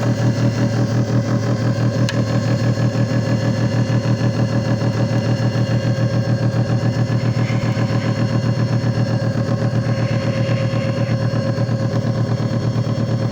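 JFJ Easy Pro disc repair machine running: a steady motor hum with a fast, even pulsing.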